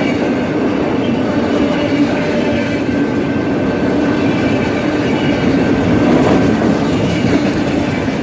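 Freight train of autorack cars rolling steadily past at a grade crossing: a continuous rumble and clatter of steel wheels on the rails, with a faint high tone running through it.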